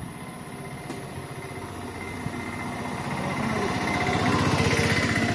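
Auto-rickshaw engine running as the three-wheeler drives up and passes close by, getting steadily louder and loudest near the end.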